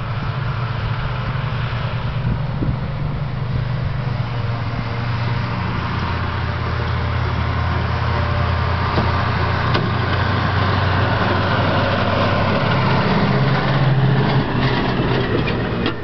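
Diesel engines of a forage harvester and tractor running steadily under work, growing louder toward the end, with a few faint clicks near the end.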